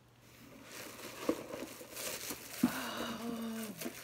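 Packing paper and plastic wrap crinkling and rustling as an item is pulled out of a cardboard box, with two sharp knocks and a woman's voice holding a brief hum just before the end.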